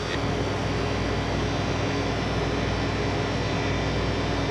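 Steady hum and rush of a shop's cooling equipment, with two faint steady tones running through it.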